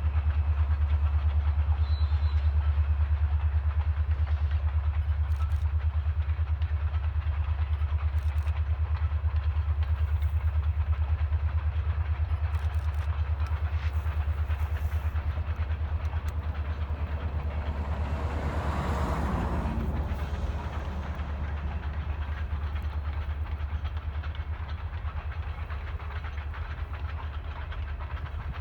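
A train running by: a steady, loud low rumble with a swell of noise about two-thirds of the way through, easing off slowly toward the end.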